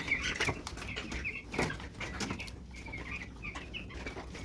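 A flock of broiler chickens calling, many short overlapping peeps and chirps, with scattered sharp clicks among them.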